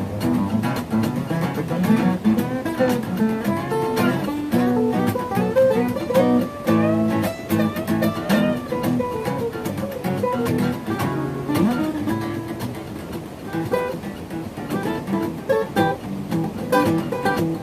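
Acoustic guitar playing a blues jam, a mix of picked single notes and strummed chords.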